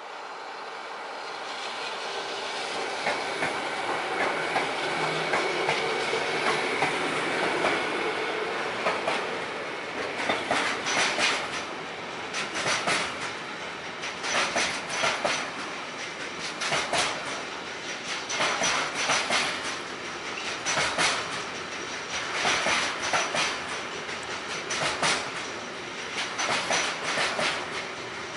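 Freight train hauled by two Siemens Vectron electric locomotives passing. Its running noise builds over the first few seconds. From about ten seconds in, the wagons carrying road semi-trailers roll by, their wheels clicking over the track in clusters about every two seconds, with a thin steady high tone.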